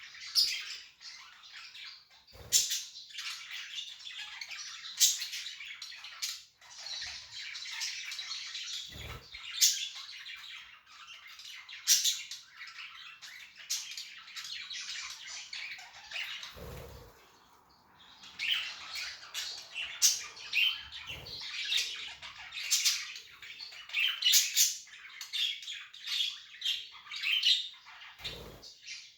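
Budgerigars chirping and warbling in continuous high chatter, broken by frequent sharp, loud calls, with a short lull past the middle. A few soft low thumps sound in between.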